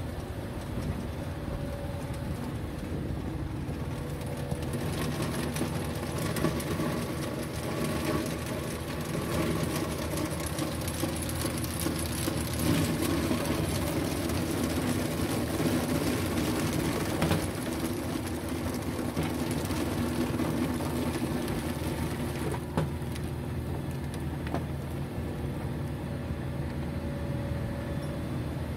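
Heavy diesel road-construction machinery running steadily at a worksite, with a few sharp knocks in the second half.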